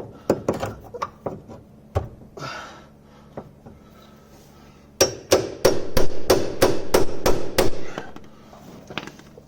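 Hammer striking metal on a car's front suspension to free a seized part: a few scattered blows, then a quick run of about a dozen blows at roughly four a second.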